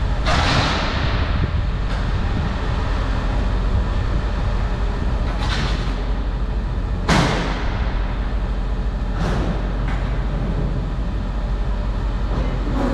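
Steady low rumble of a vehicle on the road, with several short hissing sweeps that fall in pitch, the loudest about seven seconds in.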